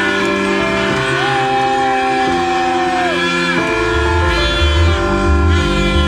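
Background music: held chords under a sliding, bending lead line, with a heavy pulsing bass beat coming in a little over halfway through.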